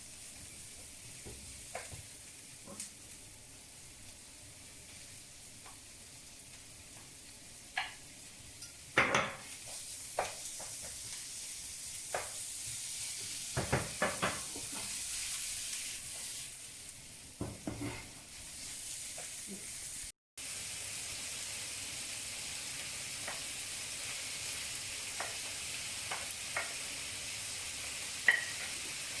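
Food sizzling in a hot wok while it is stirred, with scattered knocks and scrapes of a utensil against the pan. The sizzle grows louder about nine seconds in.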